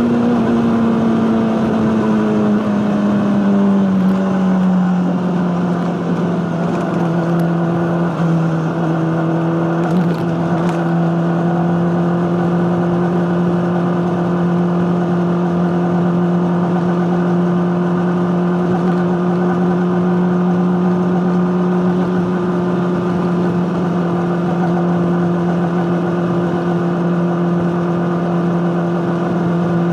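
Honda CBR600RR's inline-four engine running through an Akrapovic exhaust. Its pitch drops over the first few seconds, then holds at a steady high drone.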